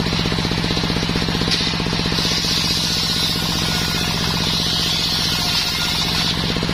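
Belt-driven table circular saw ripping a sengon (Albizia) plank lengthwise. The blade's cutting hiss sits over the fast, steady beat and hum of the machine driving it.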